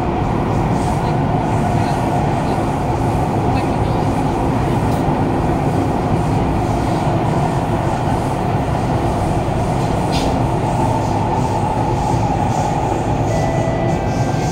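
Kawasaki Heavy Industries C151 metro train running through an underground tunnel, heard inside the carriage: a steady, loud rumble of wheels on rails and running gear.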